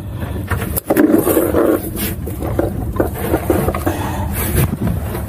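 Steady low rumble of boat and wind noise on the microphone, with scrapes and knocks as pliers work to cut the wire leader from a landed cobia's mouth on the deck.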